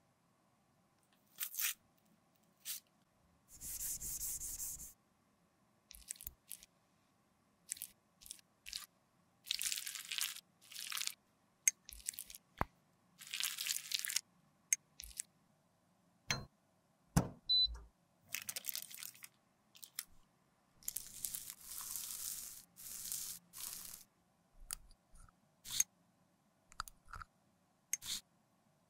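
Lipstick being dug out of its tube with a plastic spatula: a series of short crunchy scrapes with quiet pauses between them, and a couple of sharp clicks around the middle.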